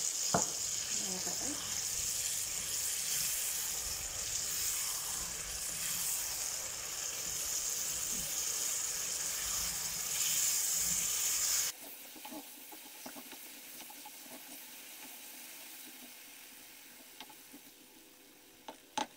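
Thick dates-and-tamarind pickle masala sizzling and bubbling in a pan as a wooden spoon stirs it. About twelve seconds in the sizzle drops suddenly to a much quieter simmer.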